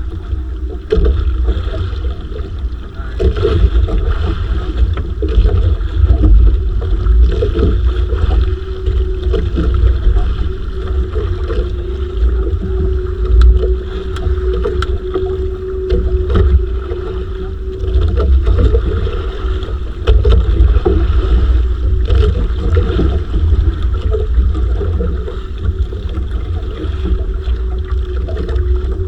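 A small boat's engine running steadily, with heavy wind buffeting the microphone and occasional knocks.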